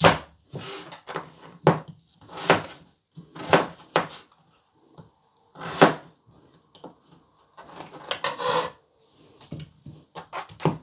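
Kitchen knife roll-cutting a peeled potato into chunks on a plastic cutting board: about a dozen irregularly spaced chops, each a knock of the blade going through the potato onto the board.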